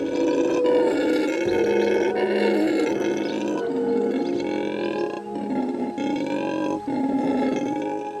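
Red howler monkey howling: a string of long, drawn-out calls, one after another with short breaks between them.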